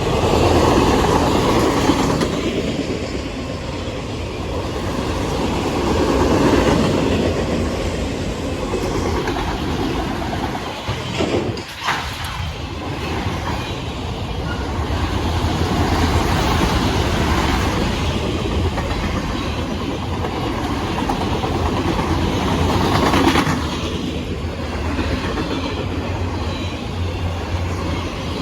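A Norfolk Southern freight train's cars rolling past close by: a steady rumble and clatter of steel wheels on the rails that swells and eases every few seconds, with a brief lull about halfway through.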